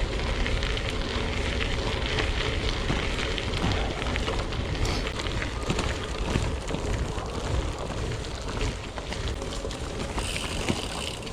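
Merida Silex gravel bike rolling over a gravel track: a steady crackling crunch of tyres on loose stones with many small clicks and rattles, and wind buffeting the microphone.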